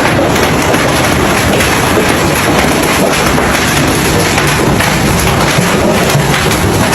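Hailstorm: a dense, steady clatter of hailstones pelting down, mixed with heavy rain.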